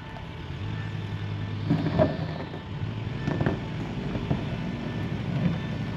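A Bürstner caravan being manoeuvred over gravel: a steady low motor hum, with rougher crunching noises about two seconds and three and a half seconds in.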